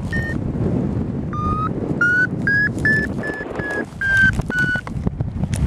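Paragliding variometer beeping in lift: a string of short beeps, about two a second after the first few, their pitch climbing and then easing slightly as the climb rate changes. Steady wind rush on the microphone runs underneath.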